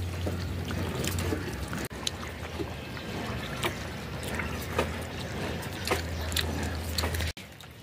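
Wind buffeting the phone's microphone: a low rumble that swells and eases, with scattered small crackles over a steady hiss, cutting off abruptly near the end.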